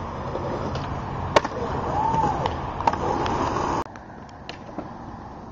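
Skateboard wheels rolling on concrete, with two sharp clacks of the board about a second and a half apart and a brief rising-and-falling whine between them. After a sudden drop in level, only faint street noise and a few light clicks remain.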